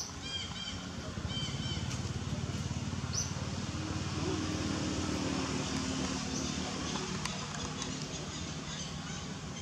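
A motor engine drones, growing louder over the first few seconds and easing off near the end, while birds chirp a few times early on.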